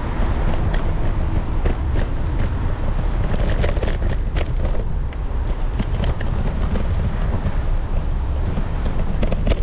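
Wind buffeting the action camera's microphone over a steady low rumble of small scooter wheels rolling on wet brick paving, with scattered sharp clicks and rattles.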